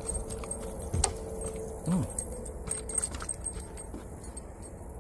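Rapid clicking and light metallic rattling of fishing tackle as a small hooked fish is reeled in and lifted out of the water, mostly in the first three seconds.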